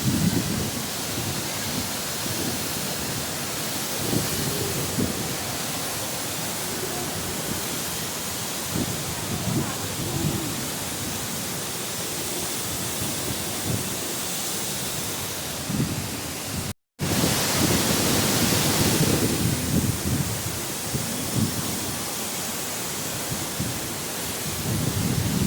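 Waterfall: a steady rush of falling water, with uneven low rumbles from wind buffeting the microphone. The sound cuts out for an instant about two-thirds of the way through and resumes a little brighter.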